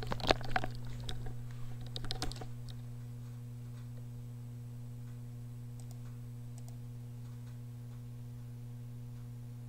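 A quick run of clicks and taps from working a computer over the first couple of seconds, with two faint clicks later, over a steady low electrical hum.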